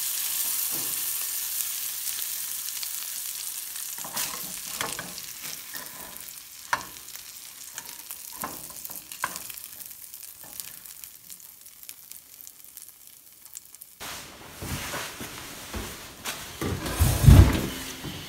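Eggs and hash sizzling in a small nonstick frying pan, the hiss dying away over the first few seconds, followed by a spatula scraping and clicking against the pan. About four seconds before the end the background changes, and near the end there is one loud deep thump.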